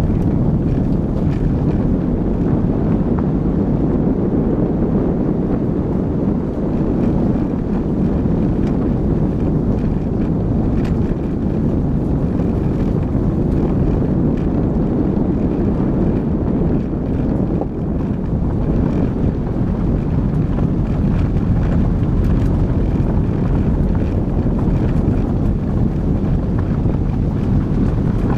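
Car driving along a loose gravel road: steady engine and tyre-on-gravel noise mixed with wind on the microphone.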